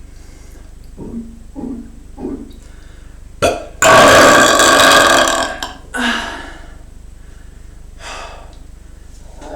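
A person gulping air in a few short swallows, then belching loudly for about two seconds, followed by a shorter belch.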